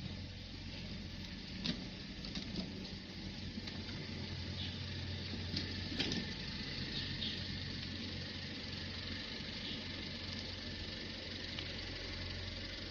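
Steady low machine hum with an even hiss over it, broken by a couple of sharp clicks, about two seconds in and again about six seconds in.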